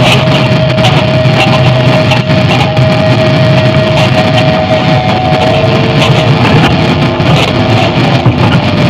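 Electronic noise music from sound generators: a loud, dense wall of noise with one steady tone held through it.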